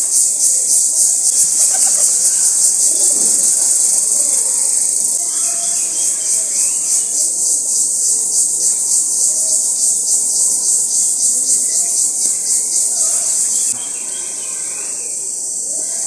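Loud insect chorus, a high-pitched rhythmic pulsing drone typical of cicadas or crickets. It drops a little near the end.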